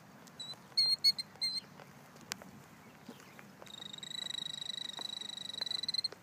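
Killdeer calling: a few short, high notes in the first second and a half, then from about three and a half seconds in a long, rapid, high trill that carries on. It is the alarm trill a killdeer gives during its broken-wing distraction display, to lead an intruder away from its nest.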